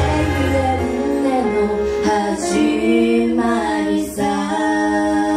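Two women singing a duet into microphones, their voices moving through a melody and settling on a long held note about four seconds in.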